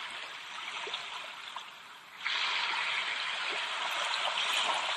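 Ocean waves washing against the shore, a steady hiss of surf that grows suddenly louder a little over two seconds in as a wave comes in.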